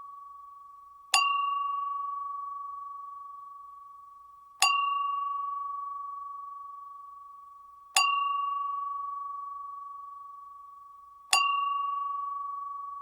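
Gas pump bell dinging four times, about every three and a half seconds. Each strike rings out in one clear tone that slowly fades until the next.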